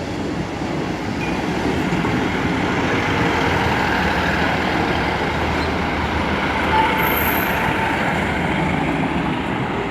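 Class 158 diesel multiple unit passing over the level crossing at low speed: a steady rumble of diesel engines and wheels on rail, with a brief high squeal about seven seconds in.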